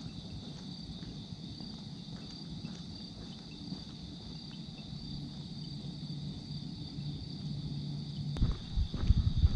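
Crickets chirring steadily in a pre-dawn chorus over a low background rumble. Near the end come a few dull thumps.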